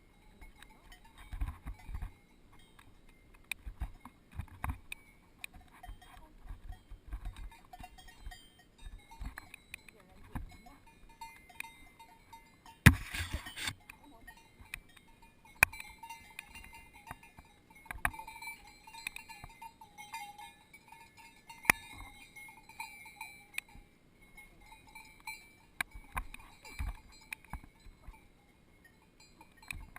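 Cowbells on grazing cows clanking irregularly, a few ringing strokes every second or so. A brief loud burst of noise comes about halfway through.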